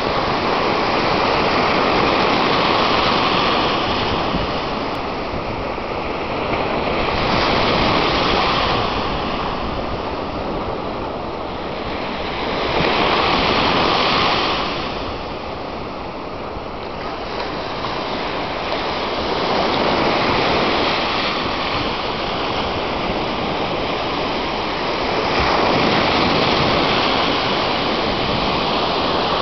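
Small ocean waves breaking and washing up a sandy beach, the surf swelling louder about every five or six seconds.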